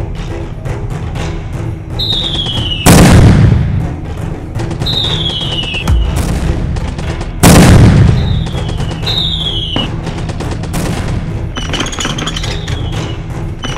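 Battlefield sound effects over background music: short falling whistles of incoming shells, scattered gunfire cracks, and two loud explosions about three and seven and a half seconds in.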